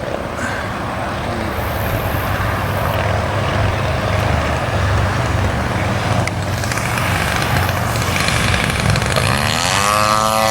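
50cc gas engine of a large RC aerobatic plane running in flight, rising sharply in pitch near the end.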